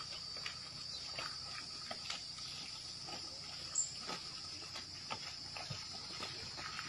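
Faint, steady high-pitched drone of insects, with scattered soft clicks and a small knock about four seconds in.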